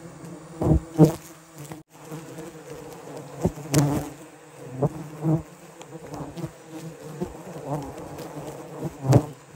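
A swarm of wild giant honey bees buzzing around their nest, with individual bees zipping loudly past several times.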